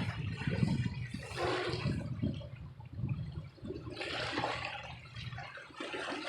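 Water sloshing and splashing in repeated surges, about a second in, about four seconds in and again near the end, over a steady low rumble.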